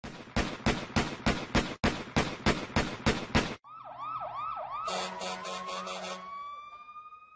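Electronic logo stinger with a siren theme. It opens with a run of sharp hits, about four a second, then turns into a swooping siren-like warble over a pulsing buzz, and ends on a single rising tone that fades away.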